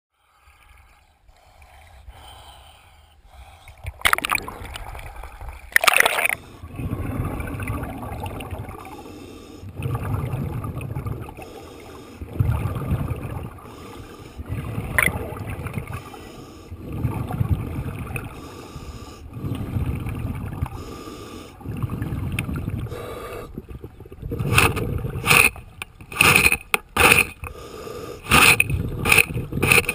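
Underwater recording of a scuba diver breathing through a regulator: exhaled bubbles gurgle and rumble in slow, regular swells every two to three seconds. Two sharp knocks come early, and over the last several seconds a run of sharp clicks and knocks sets in as the hull's barnacle growth is reached.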